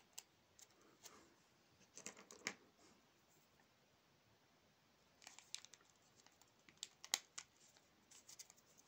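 Faint crinkling of a small zip-lock plastic bag and light clicks of the metal charms inside as it is picked open. The clicks come in a few scattered spells in the first two and a half seconds, pause, then return more densely from about five seconds in.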